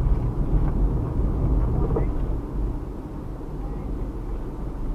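Car driving, heard from inside the cabin: steady low rumble of engine and tyres on the road, easing off a little about halfway through.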